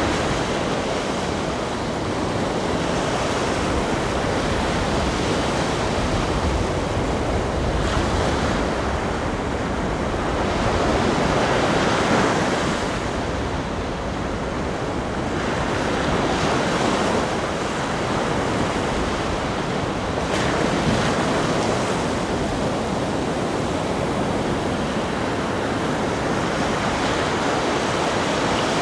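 Steady rushing noise of ocean surf that swells and eases slowly over several seconds at a time.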